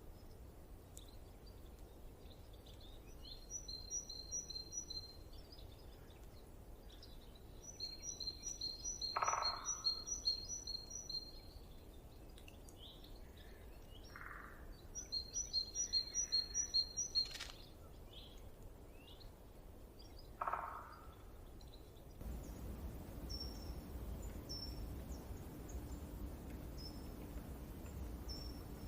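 Birds singing: three runs of rapid, evenly repeated high chirps and a couple of lower calls, over faint steady background noise. About two-thirds of the way through the ambience changes to a low steady hum with only a few short high chirps.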